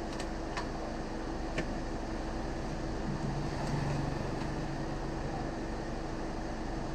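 Steady background hum, like a fan or air conditioner running, with three light clicks of a phone and plastic card being handled in the first two seconds.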